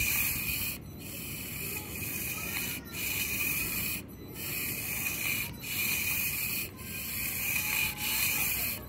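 Sniclo SNT 1/64-scale micro RC car's tiny electric motor and gearbox whining high-pitched in short bursts of throttle, cutting out briefly about once a second. The on-off throttle bursts come from the car needing momentum to get over a small obstacle, since its throttle can't be eased on smoothly.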